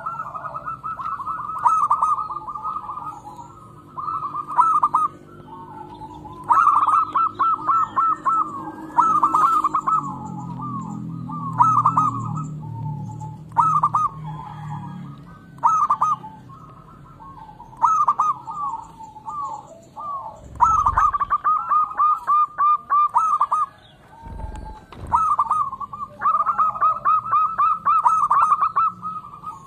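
Zebra dove (perkutut) calling: repeated runs of rapid, staccato cooing notes, each run lasting one to two seconds, with short pauses between. A lower drawn-out tone sits underneath in the first half, and two dull low thumps come in the second half.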